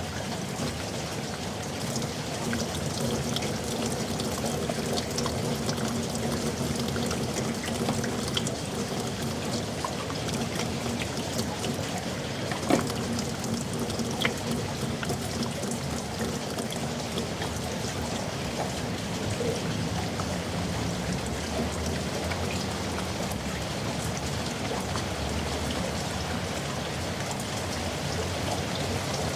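Heavy rain falling steadily in a yard, a continuous wash of rain noise with scattered sharper drips, one of them louder about 13 seconds in.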